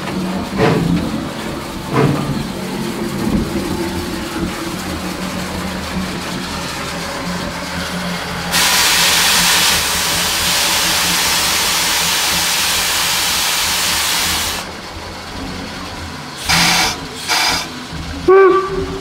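Steam locomotive at work, with a loud, even hiss of steam venting that starts suddenly about halfway through, lasts about six seconds and cuts off. Around it are a steady low hum and a few sharp knocks.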